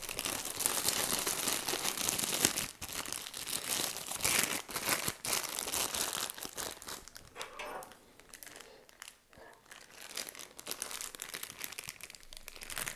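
Plastic piping bag crinkling as it is handled and filled with caramelized condensed milk, busy for about the first eight seconds, then fainter and more scattered.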